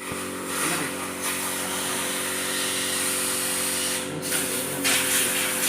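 Steady mechanical hum with a hiss, like a small machine or motor running at constant speed.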